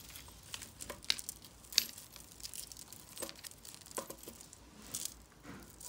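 Scattered light clicks and rustling as a tangled bundle of metal jewelry chains and beads is handled and picked apart.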